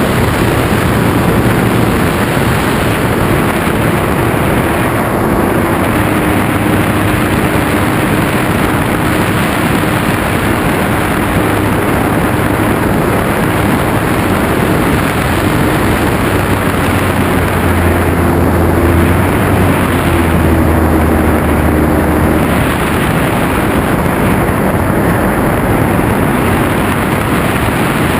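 Steady rush of airflow over the microphone of a camera on a flying radio-controlled model plane, with the faint hum of its propeller motor underneath, shifting in pitch with throttle changes around two-thirds of the way through.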